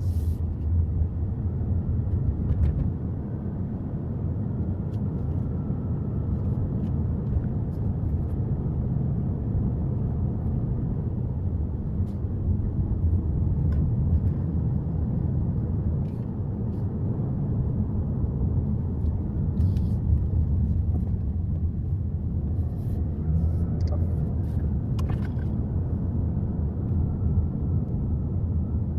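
Subaru Forester driving on the road: a steady low rumble of engine and tyre noise, with a few faint clicks.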